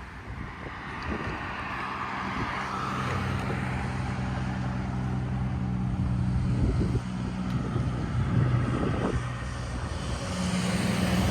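Diesel locomotive engine running as the train approaches: a steady low hum that grows louder.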